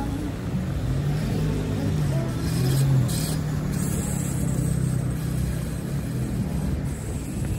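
City street ambience led by a motor vehicle's engine running close by, a steady low hum that is loudest about two to three seconds in, over a general wash of traffic noise.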